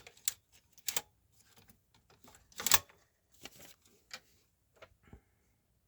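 Clicks and knocks of a vintage slide projector's plastic and metal parts being handled and worked: about seven separate sharp clicks, the loudest a little before the middle.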